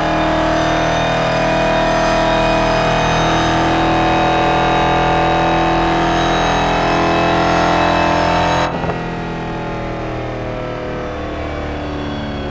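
Car engine and exhaust running steadily at held revs, loud. About nine seconds in it cuts off abruptly to a different, quieter engine running steadily.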